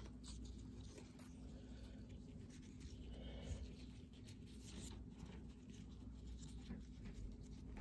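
Faint rustling and scratching of satin ribbon being handled and pinched by fingers at the centre of a bow, over a low steady hum.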